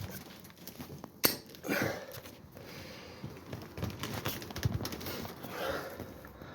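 Scattered metal knocks and clicks as the door of an old drinks vending machine is worked off, with one sharp knock just over a second in.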